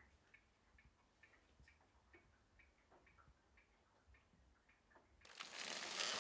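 Faint, even ticking, a little over two ticks a second. About five seconds in, a loud rustling and scraping starts as the foam-wrapped sewing machine head is handled in its cardboard box.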